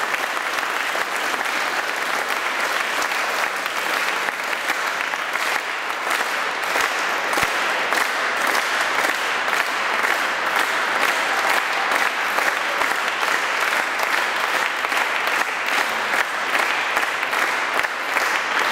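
Audience applauding, a steady, sustained round of clapping.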